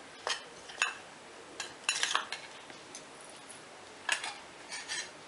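Spoon and small steel bowl clinking and scraping against a stainless steel mixing bowl as peanut powder is tipped in. A few short clinks with a brief metallic ring, a cluster of scrapes about two seconds in and two more near the end.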